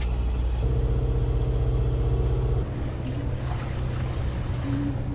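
Sailboat's inboard auxiliary engine running steadily while motor sailing, a low even drone. About halfway through it gets quieter.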